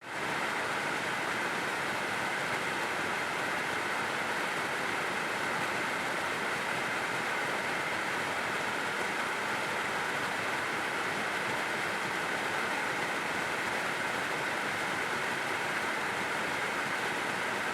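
Dehumidifier running: a steady rush of air from its fan, an even whoosh centred in the middle of the range, fading in at the very start and then holding level.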